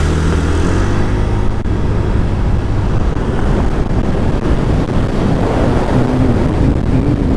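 Honda motorcycle engine running on the move, with wind and road noise over the rider's microphone. A steady engine tone in the first second gives way to a dense low rumble.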